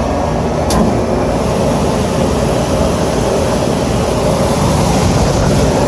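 Trane rooftop unit running steadily, its belt-driven evaporator blower moving air with a constant rush and low hum. A single sharp click about a second in.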